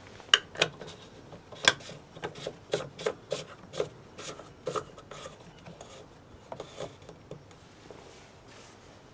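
Plastic coolant expansion tank cap being screwed on and tightened by hand: a run of irregular sharp plastic clicks and scrapes from the threads, about two or three a second, loudest in the first couple of seconds and dying away about seven seconds in.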